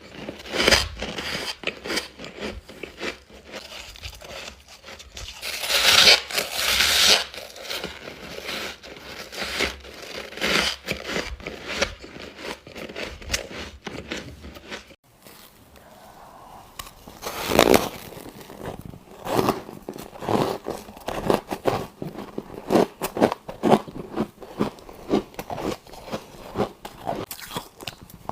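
Biting and chewing squeaky chunks of frosty freezer ice: rapid crisp crunches and crackles, with louder bites a quarter of the way in and again past halfway, and a brief pause just before the middle.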